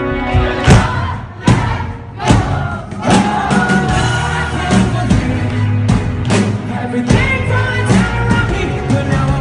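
Live rock band playing loudly, heard from the audience. Three heavy drum hits land in the first two and a half seconds, then the full band plays on with a steady beat and sustained bass notes.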